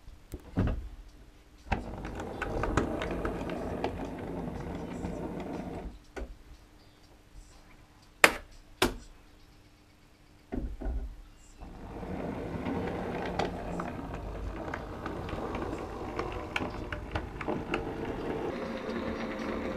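Model train running along the track, a steady rattle with many small clicks. It goes quiet about six seconds in, two sharp clicks come a little before halfway, and the running rattle starts again about twelve seconds in.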